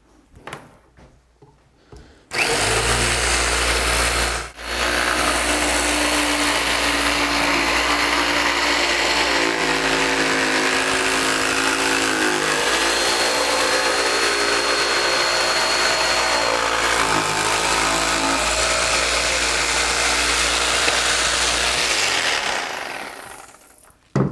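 Rockwell handheld electric jigsaw cutting a curve through a clamped wooden board, a loud motor-driven saw noise. It starts about two seconds in, cuts out for a moment and starts again, then runs steadily with its pitch shifting a few times as the load changes. It winds down a couple of seconds before the end.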